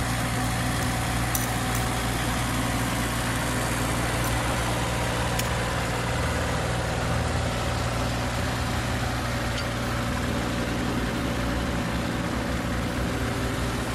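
An engine idling steadily: an even, low hum over a constant hiss that does not change.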